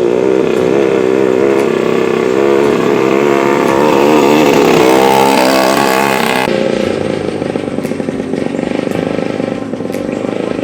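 Racing long-tail boat engine running loud, its pitch wavering up and down, with the higher part of the sound dropping away about six and a half seconds in.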